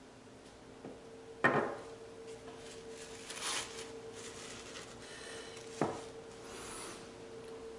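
Workbench handling noises: a sharp knock about a second and a half in and a smaller one near six seconds, with light rubbing and rustling between, over a faint steady hum.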